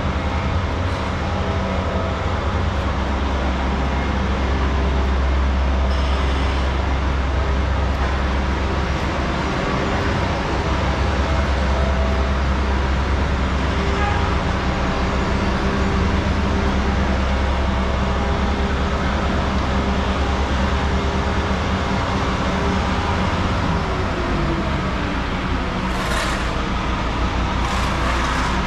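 Street traffic with a vehicle engine running close by: a deep, steady rumble whose pitch drops slightly late on, with short hissing sounds near the end.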